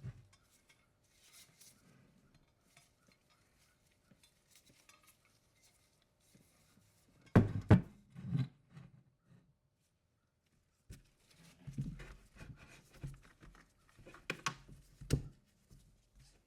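Metal objects being handled, clinking and knocking: a couple of sharp knocks about seven seconds in, then a run of smaller clinks and knocks near the end.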